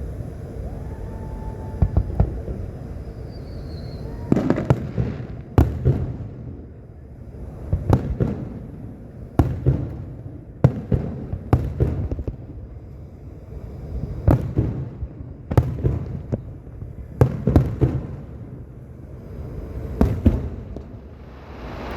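Aerial fireworks shells bursting one after another, about fifteen sharp booms spaced a second or two apart and often in quick pairs. Each bang trails off into a low rumble.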